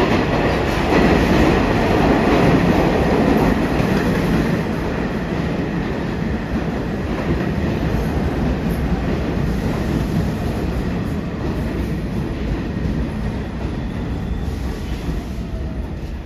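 New York City subway train running past on the far tracks: a steady rumble with wheels clattering on the rails. It is loudest in the first few seconds and slowly fades as the train goes by.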